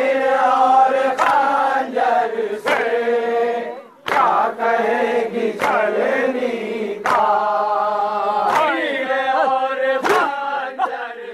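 A group of men chanting a Shia farewell noha (lament) together, with sharp slaps about every second and a half from chest-beating (matam) keeping time with the chant.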